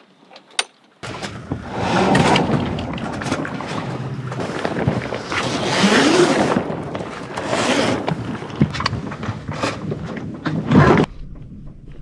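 Rushing wind and water noise on a sailboat under way, swelling and easing in waves. It starts suddenly about a second in after a few light knocks and drops off near the end.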